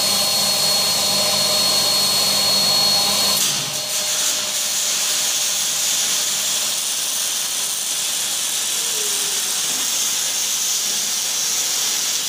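HVLP turbine paint sprayer running, a steady whine over the hiss of air and paint from the spray gun. About three seconds in the whine drops away, leaving a steady spray hiss.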